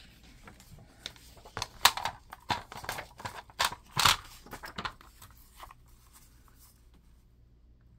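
Paper being cut and handled: a few seconds of irregular sharp snips and rustles starting about a second and a half in, as a piece measured at 2.5 by 5 is cut out.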